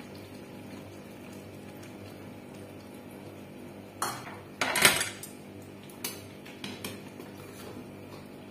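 Steel utensils clinking against a steel cooking pan: two sharp metal clinks about four to five seconds in, then lighter taps and scrapes as a spatula stirs the pan, over a faint steady background hum.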